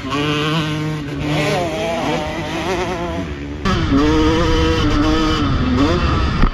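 Motocross bike engine revving up and down as it rides the dirt track, first heard from trackside. About three and a half seconds in, the sound switches to onboard on a TM 125 two-stroke motocross bike, its engine note rising and falling with the throttle.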